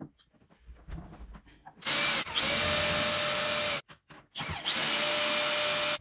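Cordless drill/driver running in two bursts of about two seconds each, spinning up to a steady whine, driving the bolts that hold the heater parts in the case.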